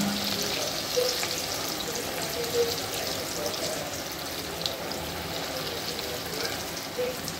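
Breadcrumb-coated potato cheese balls deep-frying in hot oil: a steady sizzle with many small crackles, busiest in the first few seconds.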